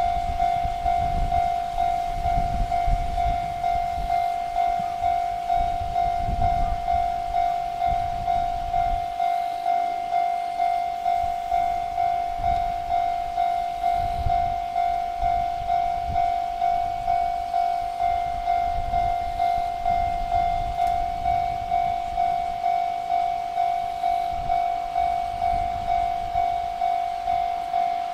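Japanese level crossing warning alarm ringing its electronic 'kan-kan' tone, repeating evenly a little under twice a second. A low rumble comes and goes underneath.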